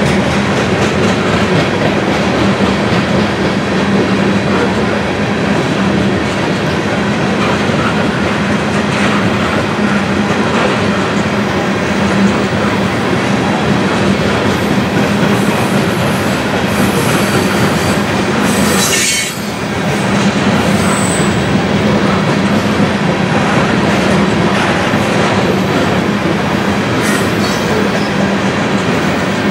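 Freight train's covered hopper cars rolling past: a steady rush of steel wheels on rail with a low hum and the clickety-clack of wheels over rail joints.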